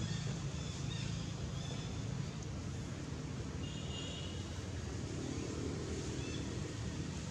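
Outdoor background noise: a steady low rumble, with faint high chirps about four seconds in.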